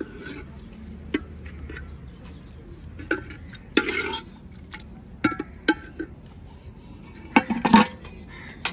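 A metal spoon scraping and clinking against an aluminium cooking pot, with aluminium plates knocking together. The clinks come singly at first, then in a loud cluster near the end.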